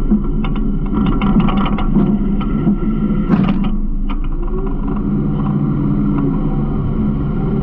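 Garbage truck running, with a steady engine drone and frequent clicks and clatters from the hopper, and one louder crash a little over three seconds in.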